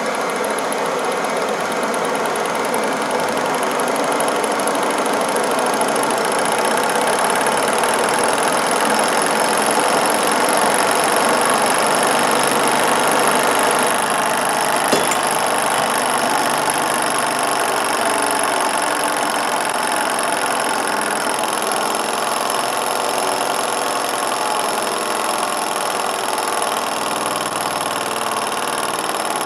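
Small beta-type Stirling engine running steadily under heat, its pistons and flywheel making a constant mechanical whir and clatter. For about the first half a handheld butane torch hisses against the engine's hot end, then goes off, with a single sharp click near the middle.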